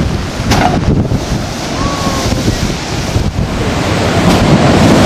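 Hurricane wind buffeting the microphone over heavy surf breaking and washing over a seawall. It is a dense, continuous rush of wind and water that grows louder in the last second and a half.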